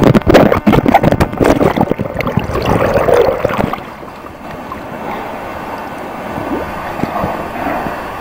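Water splashing and sloshing right beside a kayak, with a rapid run of splashes and knocks for about the first four seconds, then settling to a quieter steady wash of water and wind.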